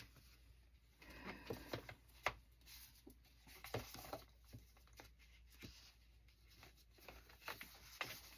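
Faint, scattered rustles and light taps of paper cards and cardstock tags being handled and sorted into a container.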